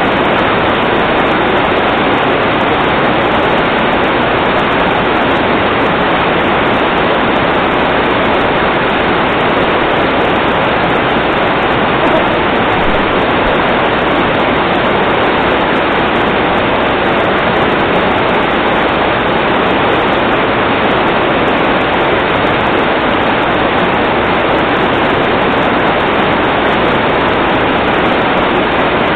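Loud, steady rush of water with no change or breaks, from the flooding at the kitchen door.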